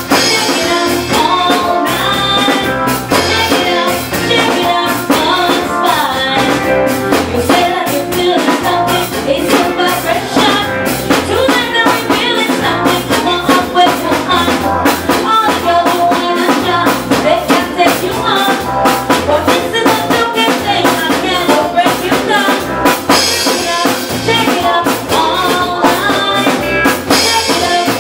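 Live soca band playing, with drum kit and a singer over a steady dance beat.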